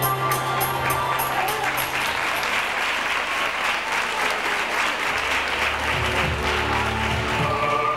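Audience applauding over background music. The clapping is fullest in the middle, where the music's low notes drop away for a few seconds before coming back.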